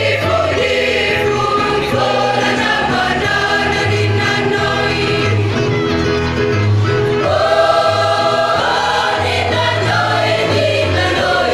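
School choir singing a regional song from Timor in several voice parts, with sustained notes held together.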